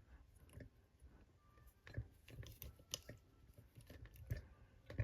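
Faint, scattered metallic clicks and scrapes of a lever pick working the levers inside an ERA four-lever padlock under light tension, with a few sharper clicks.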